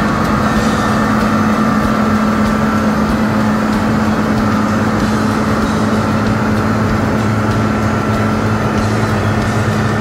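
The Cat 3204 diesel engine of a Caterpillar IT28G wheel loader running steadily as the loader drives, with a steady high whine over the engine note.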